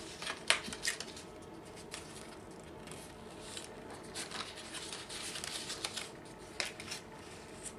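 Sheet of patterned craft paper being handled and folded, its cut points bent in toward the center: soft rustling and crinkling with a few short, sharp ticks, the clearest about half a second in and near the end.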